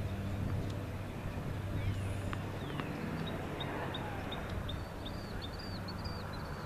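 A small bird chirping a quick run of short, high notes, about three a second, over a steady low hum. A couple of sharp taps come just before the chirping starts.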